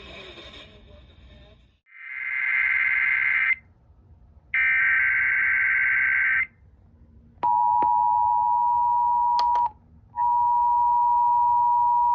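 Emergency Alert System tones received over FM radio: two harsh buzzing SAME header data bursts, then the two-tone attention signal, which breaks off twice and resumes. A few sharp clicks come just as the tone begins.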